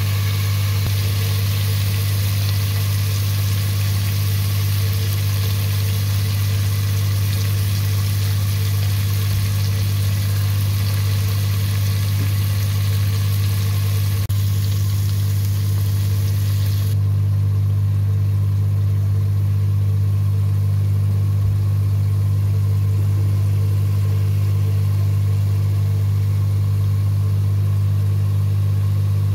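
A steady low motor-like hum, unchanging throughout, with a hiss above it that drops away suddenly about seventeen seconds in.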